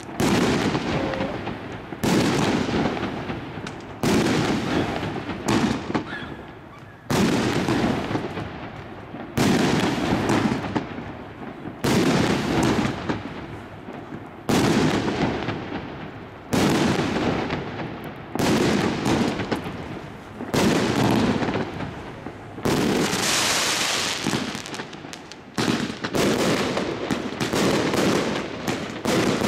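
Aerial fireworks going off one after another, a sharp bang about every one and a half to two seconds, each fading away before the next.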